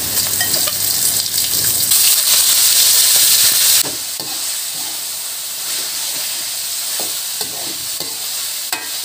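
Hot oil sizzling in a wok as a ground garlic-and-pepper paste fries with shallots. About four seconds in the sizzle drops, and minced beef is stirred with a metal slotted spatula in irregular strokes.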